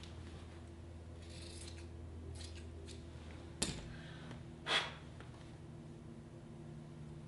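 Scissors snipping through the fabric cover of a foam pillow with a few soft cuts, then a sharp click about three and a half seconds in and a brief, louder rustle of fabric a second later.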